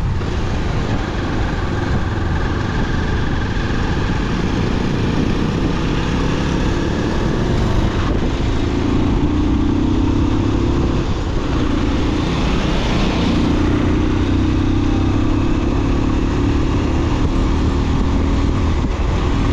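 Motorcycle engine running steadily at cruising speed, heard from the rider's seat, with its note dipping briefly about eleven seconds in.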